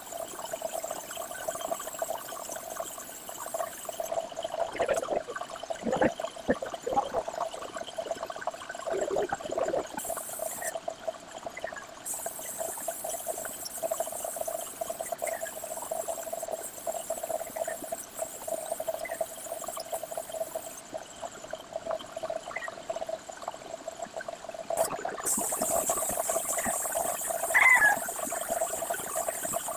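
Gravity-feed spray gun hissing as compressed air and paint spray from it, in long bursts that cut off twice for a few seconds. A steady hum runs underneath, with a few faint short chirps.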